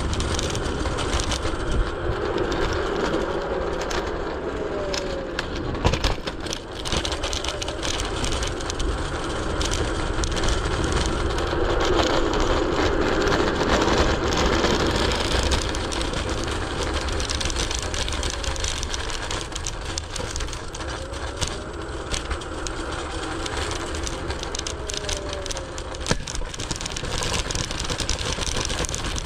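Segway Ninebot ES4 electric scooter riding over city pavement: a steady rumble and rattle from the small wheels on the road surface, with sharp knocks from bumps now and then, a loud one about six seconds in. A faint whine glides up and down in pitch a few times.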